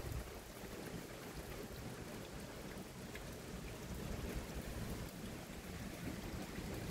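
Faint, steady hiss of running water with a few small drips or ticks.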